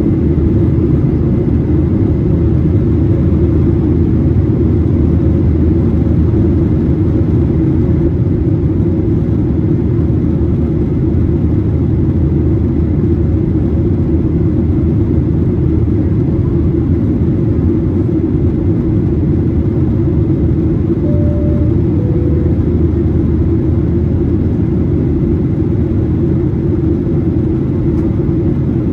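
Steady, loud cabin drone of a Boeing 737-800 in its climb after takeoff: the CFM56-7B engines and airflow, heard from a window seat, heavy and low with a faint steady hum above it. Partway through, a faint two-note chime sounds, high then low.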